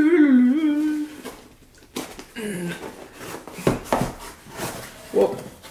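A man's short, wavering hum, then a cardboard box being pulled open by hand: scattered scrapes and knocks of the flaps and lid.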